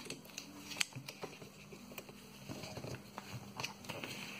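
Small scattered taps, clicks and rustles of fingers pressing and turning a swollen phone battery on a wooden desk, over a faint steady hum.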